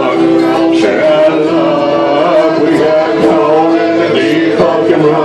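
Live folk band playing a song, with singing over acoustic string instruments.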